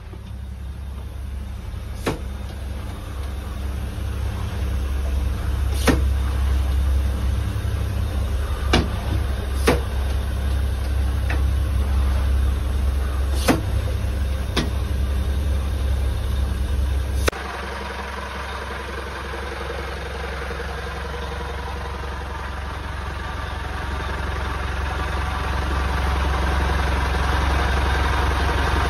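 Steady low rumble of a running engine, broken by about eight sharp knocks in the first half. A little over halfway through, the sound cuts abruptly to a brighter, steady hum that slowly grows louder.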